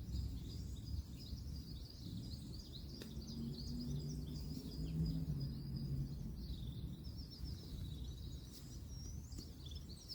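Small birds chirping continuously over the low steady rumble of distant road traffic. A low engine hum swells in the middle and fades again.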